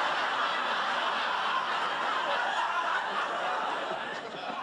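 Sitcom studio audience laughing, tapering off near the end.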